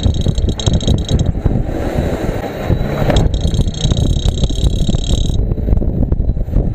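Electric bike hub motor running with a dense, irregular rattling knock: the abnormal noise that the repairer traces to the motor cover. A high whine comes in during the first second and again for about two seconds in the middle.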